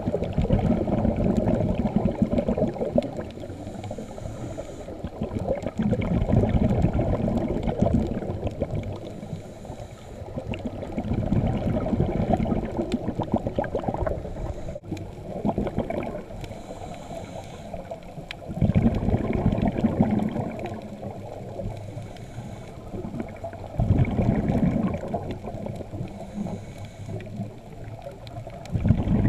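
Muffled underwater sound through a camera housing: a low rushing and gurgling that swells every few seconds, the exhaled bubbles of a scuba diver breathing.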